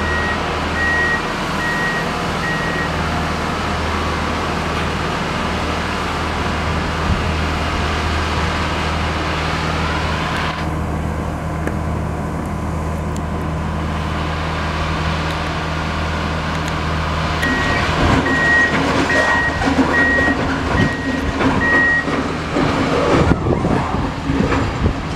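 CSX ballast regulator's diesel engine running steadily as the machine moves along the track, its backup alarm beeping about twice a second near the start and again from about 17 seconds in. From there the sound grows louder and rougher, with clattering from the machine.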